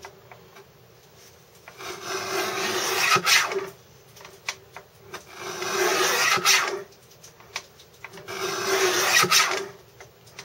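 Scissors cutting through paper in three long cuts, each growing louder and ending with a sharp click.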